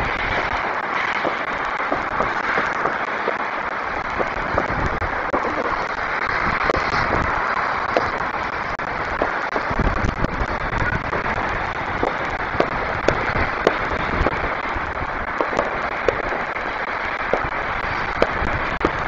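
Distant fireworks: many short, sharp pops and bangs at irregular intervals, growing more frequent in the second half, over a steady outdoor hiss.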